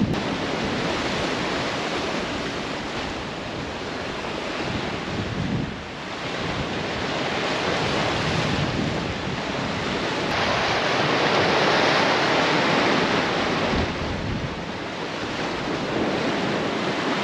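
Sea surf washing and breaking over shoreline rocks, a steady rush that swells and eases, loudest a little past the middle, with wind rushing on the microphone.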